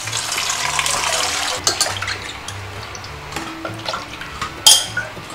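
Tap water running into a steel bowl as curry leaves are rinsed at a small sink, for about the first two seconds, over background music. A single sharp knock sounds near the end.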